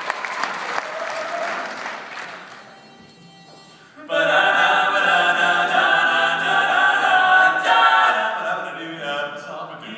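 Audience applause dying away, then about four seconds in a barbershop quartet of four male voices starts singing loud a cappella close harmony, sustained chords.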